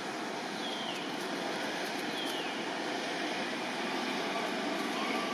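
Steady outdoor background noise, an even hiss with no clear rhythm. Three faint short chirps, each falling in pitch, come about one, two and five seconds in.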